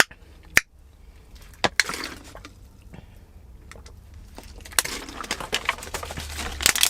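Scattered sharp clicks and crackles of a water bottle being handled and opened, denser towards the end, over a low steady hum.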